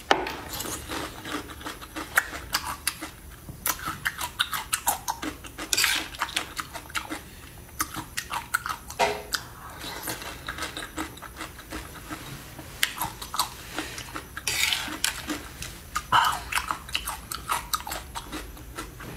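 Close-miked eating of small sea snails in chili: many sharp clicks of shells against teeth and spoon, chewing, and a few longer hissing sucks as the snail meat is drawn from the shells.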